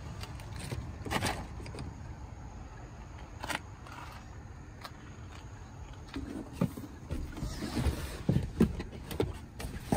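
Handling noises in a car's rear cabin: a sharp click about a second in and another a few seconds later, then a run of soft knocks and bumps in the last few seconds, over a low rumble.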